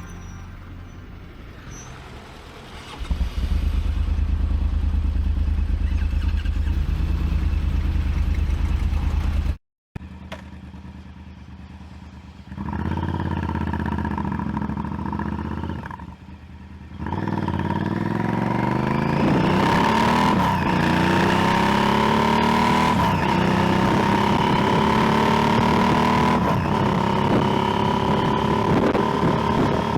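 Motorcycle engine heard from the rider's mic: a low steady rumble, a brief total dropout in the audio about a third of the way in, then the engine pulls away, its pitch climbing as it accelerates before settling into a steady cruise.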